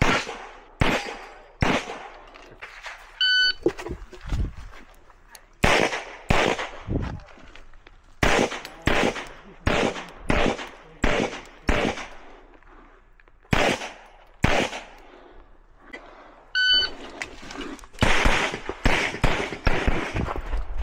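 Pistol firing in quick succession, the shots mostly in close pairs with short strings and pauses between, about twenty in all, with a longer break near the middle. Two short electronic beeps sound once early on and once near the end.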